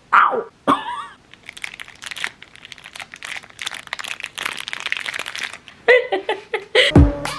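A woman's short falling yell, then a plastic candy wrapper crinkled and crumpled in the hands for about four seconds as a dense run of fine crackles. A few short vocal sounds follow near the end, and music with a beat comes in just before it closes.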